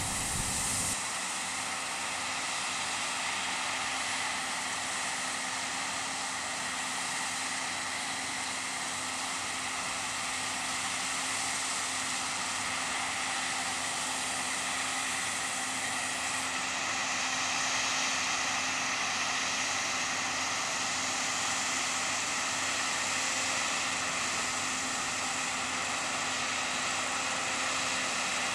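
Claas Lexion 670 combine harvester working through oilseed rape: a steady machine drone with a strong high hiss, holding even throughout.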